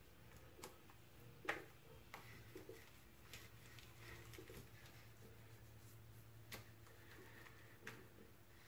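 Faint, sparse wet clicks of shaving lather being worked between the hands and spread over the face with the fingers, the loudest about a second and a half in, over a low hum of room tone.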